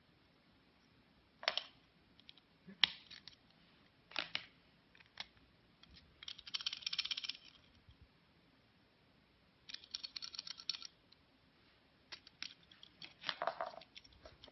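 Surprise eggs and small plastic toys being handled: scattered sharp clicks and taps, with two short spells of wrapper crinkling about six and ten seconds in.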